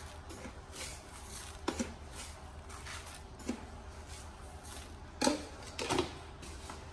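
Seasoning granules shaken from a small plastic container onto meat in a plastic bowl: soft, hissy shakes repeating every fraction of a second, with a few light knocks.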